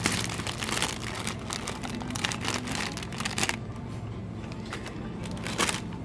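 Plastic Shin Ramyun instant-noodle packets crinkling as they are handled, a rapid run of crackles for about three and a half seconds, then one more near the end, over a low steady hum.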